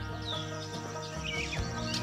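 Background music with long held notes, with birds chirping in short, quick calls over it.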